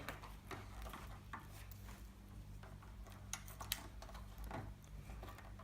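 Faint, scattered small clicks and taps of metal snap-fastener parts and a small setting holder being handled against plastic armour, over a steady low hum.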